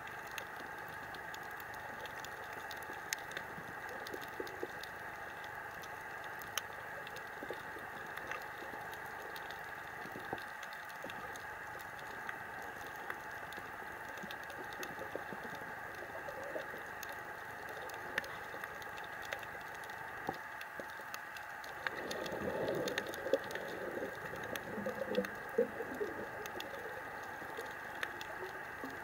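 Underwater ambience of a coral reef: a steady hiss with scattered sharp clicks and crackles. About three-quarters of the way through comes a few seconds of lower, irregular bubbling sounds.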